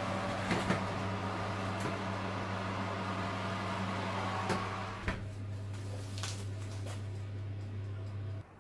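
Steady low hum of a preheated electric oven, with a few clicks and knocks as a metal baking tray is slid onto the oven rack. The strongest is a low knock about five seconds in. The hum cuts off abruptly near the end.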